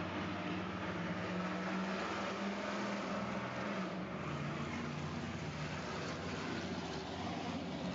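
A steady low hum over an even hiss, heard through a doorbell camera's microphone. The hum drops a little in pitch about four seconds in.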